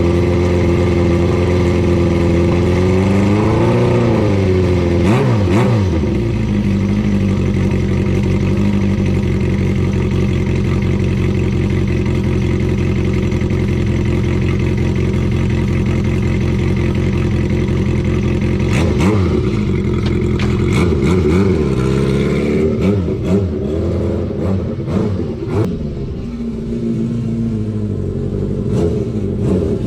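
Honda CB400 Four's air-cooled inline-four engine running through a Yoshimura short exhaust whose silencer has its glass-wool packing removed, idling with throttle blips: a rev that rises and falls about four seconds in, and several smaller ones later. A few sharp clicks come in the second half.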